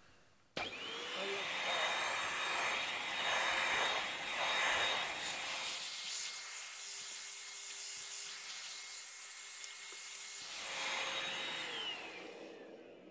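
Handheld vacuum cleaner switched on about half a second in, its motor running with a steady whine over rushing air, then winding down near the end with a falling whine.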